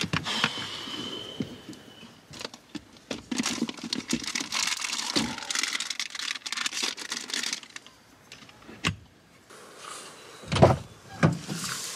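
Rustling, clicks and clatter of bags and gear being handled in the back of a car, with two heavier thuds about a second before the end.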